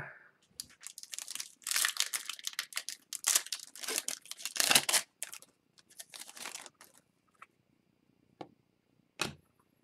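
Foil wrapper of an O-Pee-Chee Platinum hockey card pack being torn open and crinkled for the first five seconds or so, then fainter rustling and a few small ticks as the cards are slid out and handled.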